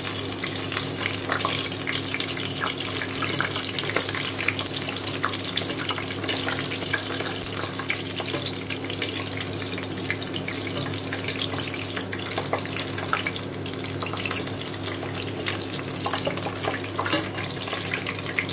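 Half a chicken shallow-frying in hot oil in a stainless pot, sizzling with a constant stream of small crackles and pops as the oil is ladled over it with a plastic spoon. A steady low hum runs underneath.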